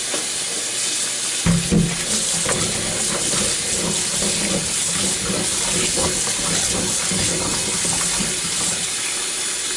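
Cold water running from a kitchen tap over small potatoes and carrots being rinsed in the sink, a steady rush; from about a second and a half in it splashes more heavily, with small knocks as the vegetables are turned under the stream.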